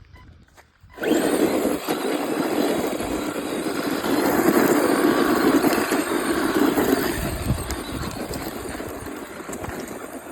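Radio-controlled car driving and drifting: a noisy rush of motor and tyres that starts suddenly about a second in and eases off in the last few seconds.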